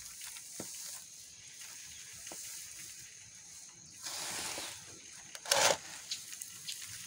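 Hands stirring and turning dry chopped wheat straw mixed with soaked cattle feed in a tub: a dry rustling with small crackles. It grows louder about four seconds in, and the loudest rustle comes about five and a half seconds in.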